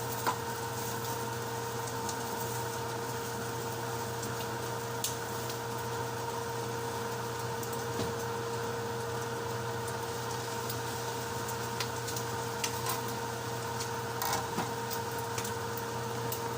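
Steady machine hum with a constant tone, with a few light clicks and taps scattered through it.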